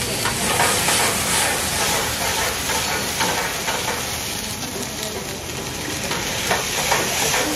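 Paneer pepper fry sizzling in a steel pan over a high gas flame, with a ladle stirring and scraping against the pan now and then.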